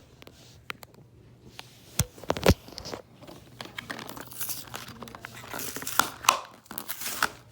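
Hot Wheels blister-card packaging being torn open: cardboard and plastic tearing and crinkling, with two sharp snaps about two seconds in.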